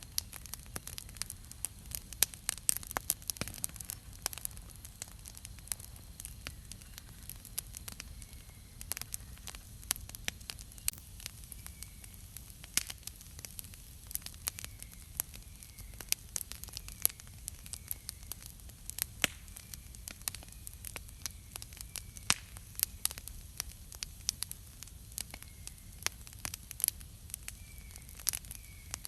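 Wood campfire crackling, with frequent sharp pops over a low steady rumble. From about eight seconds in, a faint short chirp repeats every second or so.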